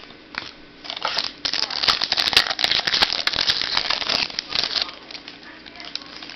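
Dense crinkling and rustling as football trading cards are handled close to the microphone, heaviest from about one to five seconds in.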